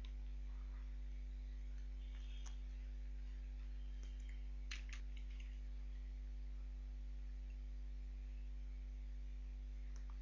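A steady low electrical hum with a few faint computer mouse clicks, including a quick pair of clicks about halfway through.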